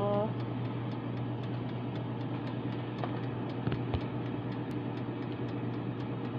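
Air fryer running, its fan giving a steady low hum, with the mechanical timer dial ticking quickly over it, about four ticks a second. Two brief knocks about halfway through.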